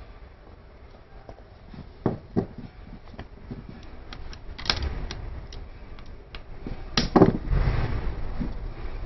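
Hand tools knocking and clicking against an electric scooter motor's gearbox housing as it is taken apart: a pair of knocks about two seconds in, a sharp click near the middle and louder knocks about seven seconds in, followed by rougher handling noise with a low rumble.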